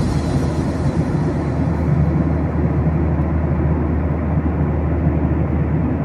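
Steady in-flight cabin noise of a Boeing 737 airliner: a low, even rumble of its jet engines and airflow past the fuselage, with a faint steady hum.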